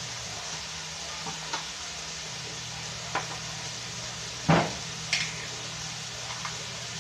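Diced hot dog, ground meat and vegetables frying in a pan with a steady low sizzle. A few sharp clicks and knocks come over it, the loudest about four and a half seconds in.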